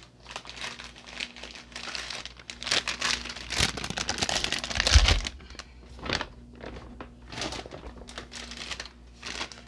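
Plastic grocery bags and produce packaging crinkling and rustling as groceries are rummaged through, with one dull thump about five seconds in.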